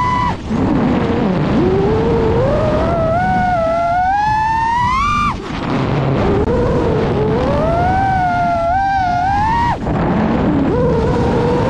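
FPV racing quadcopter's brushless motors whining, the pitch climbing with throttle and dropping sharply as the throttle is chopped, three times. A steady rushing noise runs underneath.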